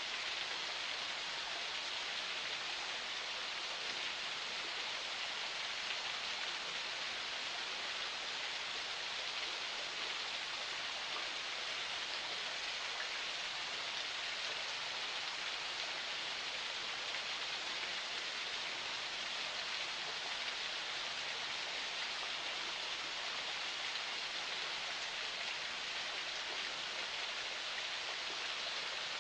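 Water of a forest spring flowing in a steady, even rush that holds unchanged throughout.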